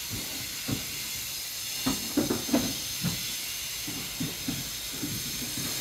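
Steady background hiss with a scatter of soft knocks and shuffles as a man's body is shifted and laid across two wooden chairs.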